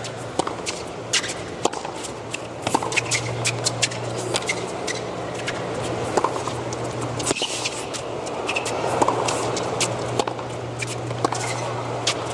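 Tennis stadium crowd ambience between points: an even murmur with many scattered sharp clicks throughout and a low steady hum underneath.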